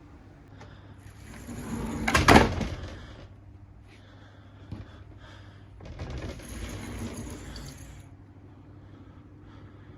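A door being shut onto a rice cooker caught in it: a rising rustle that ends in a loud knock about two seconds in, a small click later, and a longer rough scraping noise around six to eight seconds in.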